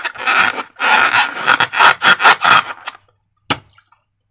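Slime being worked by hand: a quick series of rubbing, squishing strokes, about three a second, that stops about three seconds in, followed by a single short click.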